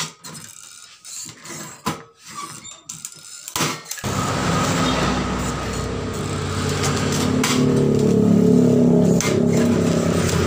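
A few sharp clicks and knocks from a hand riveter working pop rivets into a galvanized sheet-metal toolbox. From about four seconds in, a steady engine hum takes over, swelling and then easing slightly.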